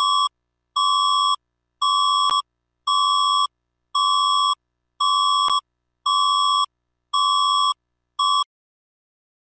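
Electronic alarm beeping about once a second, a steady high tone in short evenly spaced pulses, the signal for the start of an earthquake drill. It cuts off abruptly mid-beep after nine beeps.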